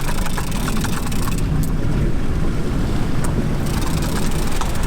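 Steady low rumble and rush of a large sailing yacht under way at sea, wind and water noise, with a few faint clicks in the first second or so.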